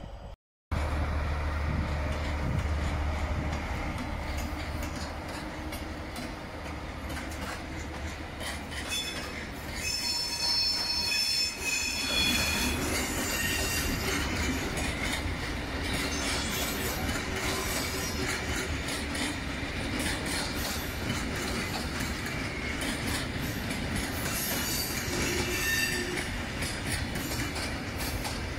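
Freight train rolling past: a MaK diesel locomotive's engine hums low and steady early on, then the wagons carrying turnout sections roll by with steady wheel noise. High-pitched wheel squeal comes and goes, about a third of the way in and again near the three-quarter mark.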